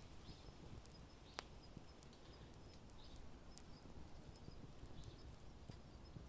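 Wood fire burning with faint, irregular crackles and small pops, one sharper pop about a second and a half in.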